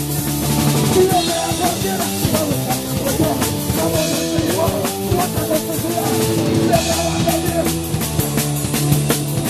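Live punk rock band playing a loud, fast song: drum kit hitting steadily under distorted guitars and bass, with a wavering melodic line over the top.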